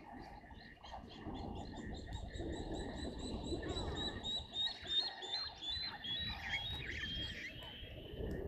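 Small animals calling at a waterhole: a fast run of short high chirps, then a repeated, stepped high call around the middle, over a low steady background rumble.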